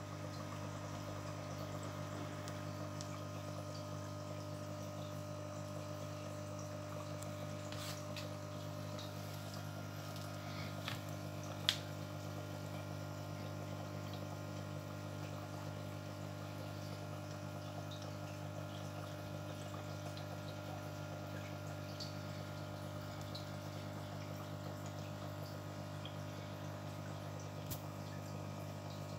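Aquarium water bubbling and trickling from an air-driven sponge filter over a steady low hum, with a single sharp click a little before the halfway point.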